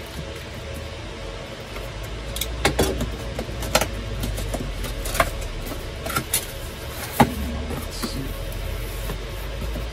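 A cardboard product box being opened by hand: the taped top is worked open and the flaps pulled back, giving scattered clicks, scrapes and rustles of cardboard. A steady low hum runs underneath.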